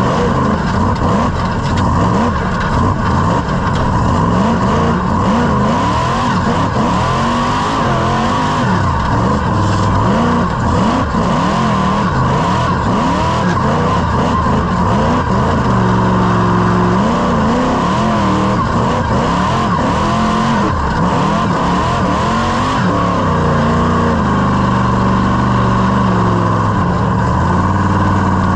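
Rock bouncer's Whipple-supercharged engine, heard from the cockpit, revving up and down again and again under hard throttle. It stays loud throughout.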